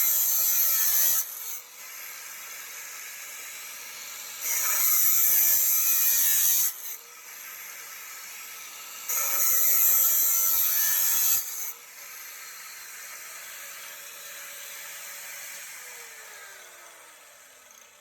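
Angle grinder running at speed with a high whine, cutting into a workpiece three times; each cut is a loud, harsh burst of about two seconds. Near the end it is switched off and winds down, its pitch falling.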